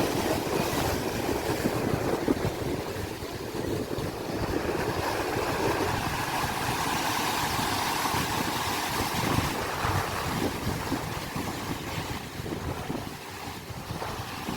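Sea waves washing, with wind buffeting the microphone. A steadier hum joins in about six seconds in and fades near the end.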